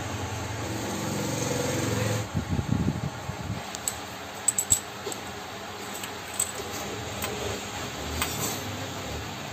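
Light metallic clicks and clinks of a spark plug and hand tools being handled at a motorcycle's cylinder head, starting about two seconds in. Before that there is a steady low hum.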